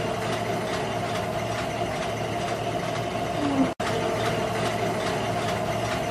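Steady running noise of a printing-plant conveyor line carrying finished hardcover books, with a constant mid-pitched hum. A short low chirp comes about three and a half seconds in, followed at once by a brief sudden dropout to silence.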